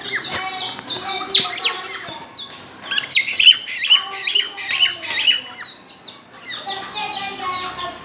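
Several cockatiels chirping and whistling together in short, quickly rising and falling notes, with a dense flurry loudest from about three to five seconds in. The uploader presents it as the mating whistling of birds ready to breed.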